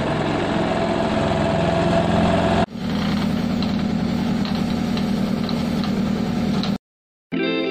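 Road construction machine engine running steadily, in two stretches joined by an abrupt cut about two and a half seconds in; it stops dead shortly before the end.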